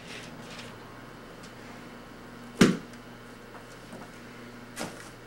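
Low steady electrical hum under quiet room tone, broken by one sharp knock about two and a half seconds in and a softer knock near the end.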